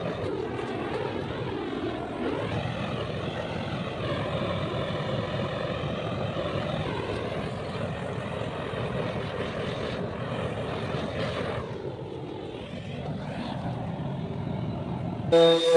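Steady rushing hiss from a hose-fed finishing tool worked over a wooden folding table, holding level with a slight dip a few seconds before the end. Music cuts in just before the end.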